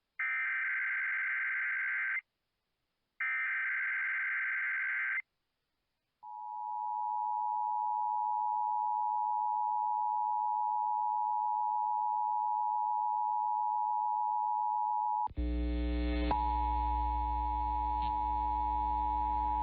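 Emergency Alert System test signal on NOAA Weather Radio: two bursts of warbling digital header data tones, a second of silence, then a steady, long attention tone. About fifteen seconds in, a low buzz joins under the tone with a brief click.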